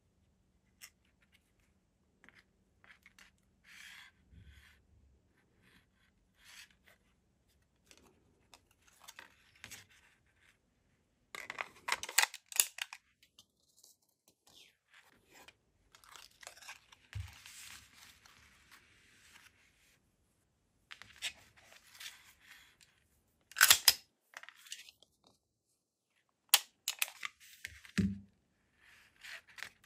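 Handling noise from a Springfield Echelon 9mm pistol: a paper tag on a string rustling against the frame, and scattered sharp metallic clicks and clacks as the magazine is taken out and the slide is locked back. The loudest clacks come about halfway through and near the end.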